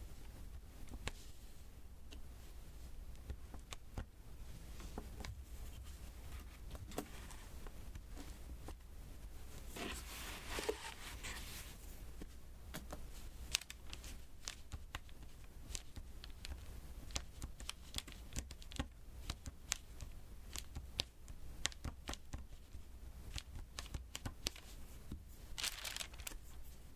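Diamond-painting drill pen tapping small resin drills one by one onto the sticky canvas, making many small, irregular clicks. There is a brief crinkly rustle about ten seconds in and another near the end.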